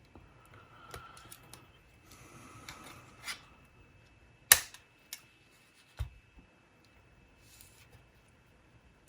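Small plastic clicks and rubbing from handling a Sony MZ-RH1 MiniDisc Walkman on the bench, with one sharp click about four and a half seconds in and a dull knock at six seconds.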